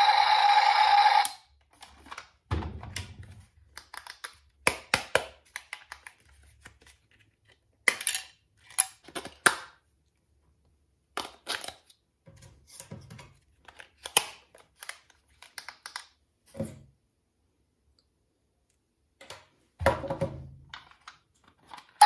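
A toy tank's electronic sound effect from its built-in speaker cuts off about a second in. After that come scattered plastic clicks, taps and knocks from handling the toy tank and its remote control, with quiet gaps between them.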